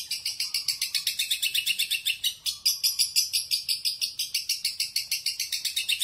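Caged cendet (shrike) singing a fast, even run of sharp high-pitched notes, about eight a second, with a brief break about two seconds in.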